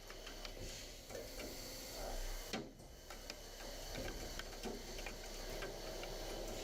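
Faint machine running: a steady low hum with scattered light mechanical clicks, briefly cutting out about two and a half seconds in.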